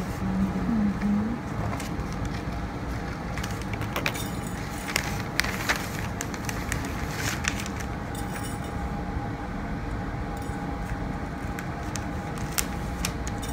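Pattern paper and muslin rustling and crinkling in short scattered bursts as the fabric is smoothed and pressed flat onto the paper by hand, over a steady room rumble with a faint constant whine.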